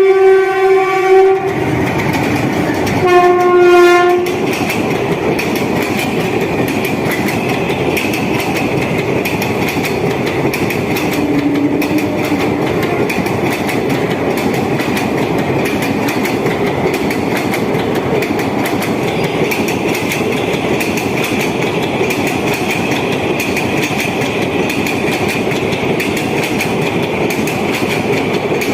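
A train horn sounds two blasts in the first four seconds. After that, an Indian Railways ICF passenger coach runs at speed, its wheels giving a steady rumble and fast clickety-clack over the track.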